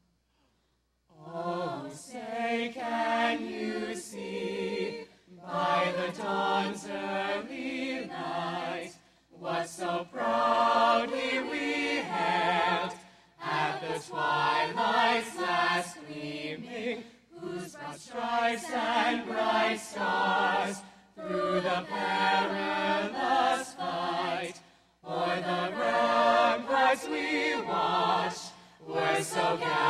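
A high school choir singing a national anthem in phrases, with short breath pauses between them. The singing begins about a second in, after near silence.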